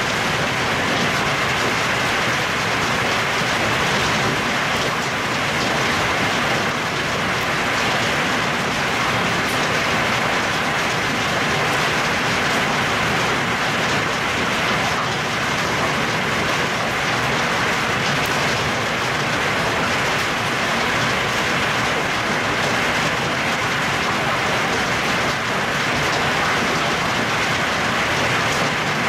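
Heavy downpour of rain and hail falling steadily on trees and foliage, a dense, even hiss with no let-up.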